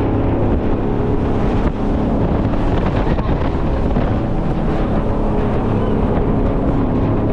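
Jet boat engine running steadily at speed, a continuous drone, with wind buffeting the microphone.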